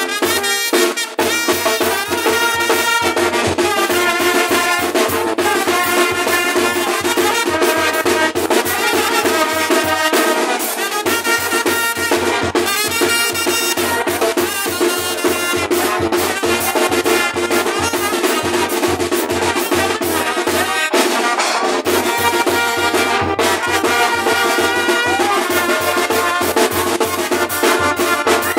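Brass band playing lively dance music, trumpets and trombones over a steady drum beat.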